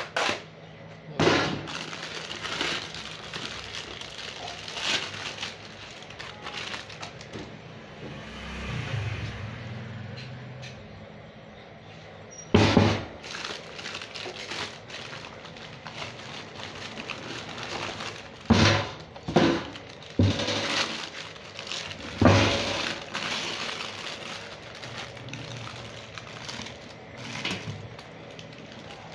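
Paper wrapping crinkling and rustling as a new crown wheel and pinion gear set is unpacked by hand, with several sharp knocks and clatters from handling the packing tub and gears.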